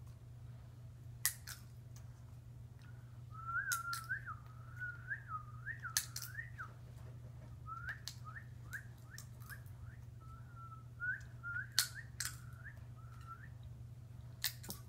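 A high, wavering whistle starts about three seconds in and slides up and down, breaks into a string of short rising notes, then trails off near the end. Several sharp clicks, the loudest sounds, come now and then over a low steady hum.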